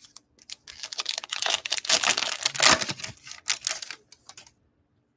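A foil-and-plastic trading card pack wrapper crinkling and crackling as it is torn open by hand, a dense run of crackles that stops after about four seconds.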